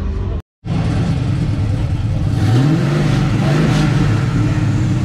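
A big-block V8 in a first-generation Chevrolet Camaro SS badged 502 runs at idle and is revved twice in quick succession about halfway through, the pitch rising and falling back each time.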